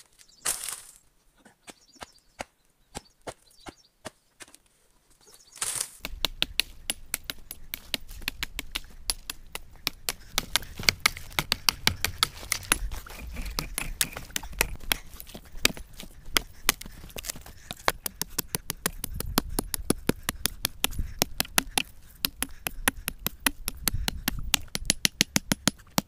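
Hatchet striking wood: a few separate chops at first, then from about six seconds in a fast, steady run of sharp knocks, several a second.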